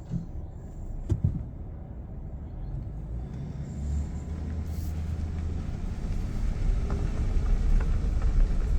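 A vehicle driving, its engine and road noise rumbling low and steady and growing louder as it picks up speed, with a couple of sharp knocks about a second in.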